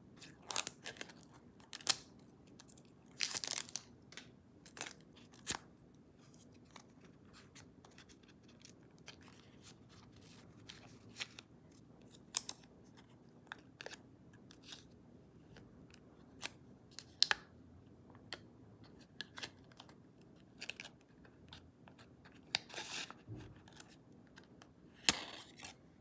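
A Feather razor blade being taken from its dispenser box and unwrapped from its paper wrapper by hand: crisp paper rustling and tearing in short spells, with small clicks and taps scattered between them.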